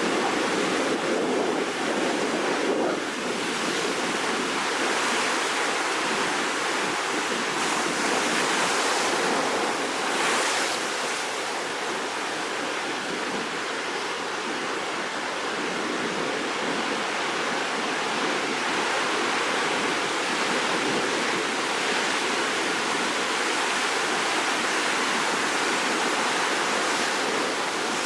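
Rough sea before a typhoon: surf breaking and washing steadily, with a few gentle swells in loudness.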